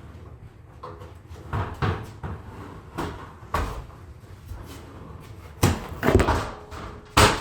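A series of irregular knocks and clunks, hard objects bumping together about seven times, louder in the second half.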